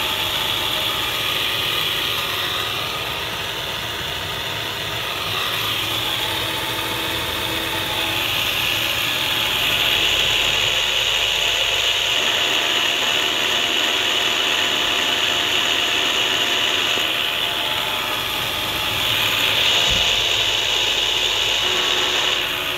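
Drive shaft support bearing turning with a steady, high-pitched mechanical whirring noise, swelling a little about ten and twenty seconds in: the sound of a worn drive shaft bearing.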